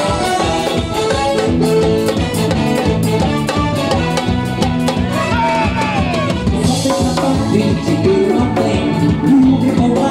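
A live carnival band playing Latin-style music with a steady drum-kit beat. About five seconds in a note slides downward, and a cymbal crash follows just after.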